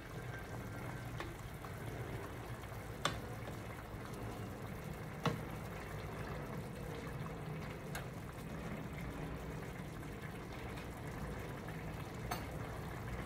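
Pot of menudo stew simmering on the stove with a steady bubbling hiss, broken by four sharp knocks spaced a few seconds apart. The stew is nearly cooked, its potatoes still slightly firm.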